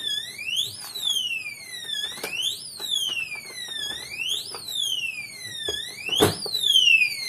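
FU88G electronic safe's warning alarm sounding: a siren-like electronic tone that sweeps up and falls back about once every two seconds, triggered by three failed fingerprint reads and kept going until the safe is unlocked. A sharp clunk about six seconds in.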